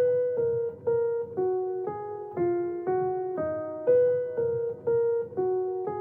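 Background music: a piano-like keyboard playing a steady run of notes, a new note about every half second, each fading before the next.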